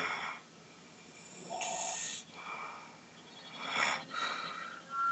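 A sleeping person snoring loudly: one snore trails off in the first half-second, followed by several shorter, softer snoring breaths.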